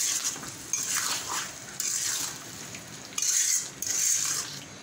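Metal spatula scraping and stirring green mango pieces and sugar around a karahi, in uneven scraping strokes about one a second. The sugar is melting into a syrup in which the half-cooked mango will finish cooking.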